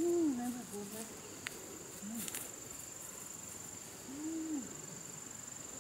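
Insects droning in a steady high-pitched whine, with three short low calls that rise and fall in pitch: one at the start, one about two seconds in and a longer one about four seconds in.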